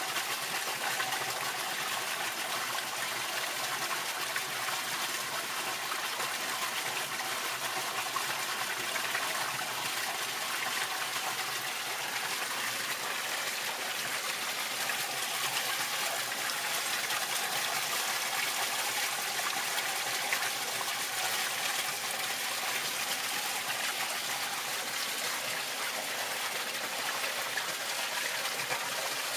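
Pond water running steadily through a DIY pond filter made from a 50-gallon aquarium tank, trickling and splashing into its filter-sock chambers.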